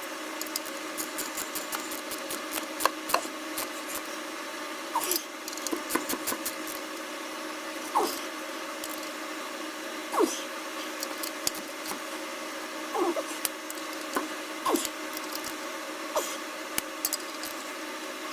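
Scattered metal clinks and knocks of hand tools with a few short squeaks, over a steady background hum.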